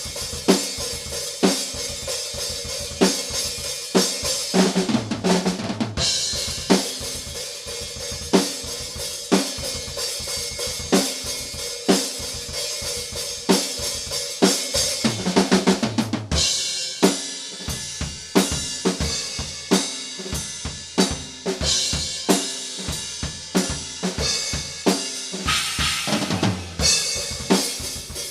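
Solo drum kit playing a metal groove: rapid bass drum notes played with a single pedal under snare hits and cymbals. Three times a fill runs down the toms and lands on a crash.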